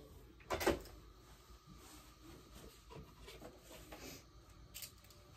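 Faint handling sounds of fabric being smoothed and arranged on an ironing board: one short, louder rustle about half a second in, then soft scattered rustles and light knocks.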